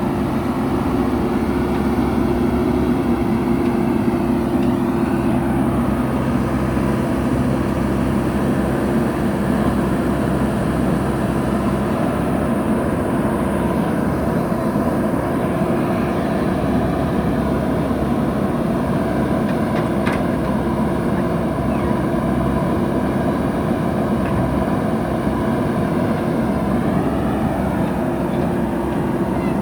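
Heavy diesel engine of construction machinery running steadily at working speed, with small shifts in pitch a few seconds in and again near the end.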